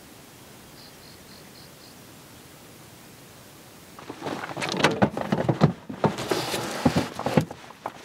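Quiet outdoor background with a quick run of five faint high chirps about a second in. About halfway through, a plastic storage tote is lifted and slid into a Jeep's rear cargo area, giving a few seconds of knocks, scrapes and rustling.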